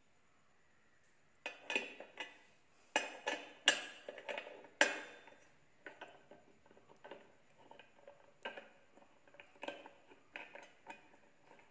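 Metal clinks and clanks of a brush cutter's three-tooth steel blade and its hub fittings being worked loose and handled by hand. A run of sharp clanks starts about a second and a half in, then lighter scattered clicks.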